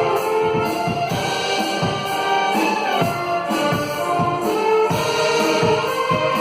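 Music with a steady beat of about two beats a second.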